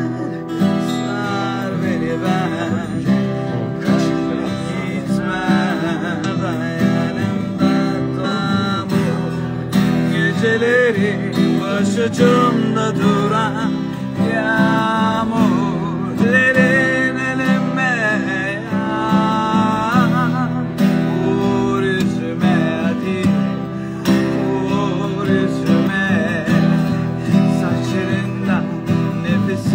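Two acoustic guitars played together while a man sings a slow melody over them.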